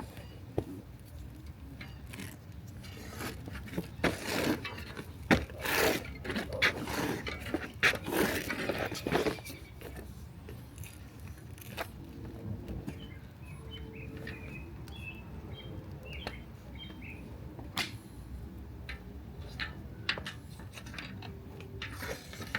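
Hands working a mountain bike tyre off its rim, with scattered clicks and knocks and a run of rubbing and scraping about 3 to 9 seconds in.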